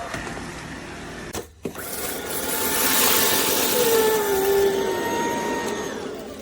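Cordless stick vacuum running with a whooshing suction noise and a steady motor whine. It cuts out briefly about a second and a half in, comes back louder, then starts to fade near the end as the motor begins to wind down.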